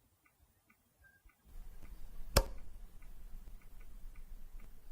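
A single light switch clicking once, about two and a half seconds in, over faint ticking like a clock.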